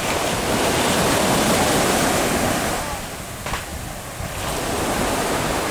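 Sea surf washing against the shore with wind on the microphone: the rush of the waves swells over the first few seconds, eases off a little past halfway, then rises again.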